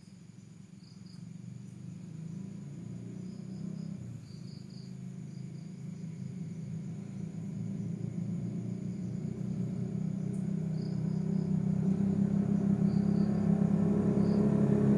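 Crickets chirping in short bursts over the low hum of an approaching motor vehicle, which grows steadily louder.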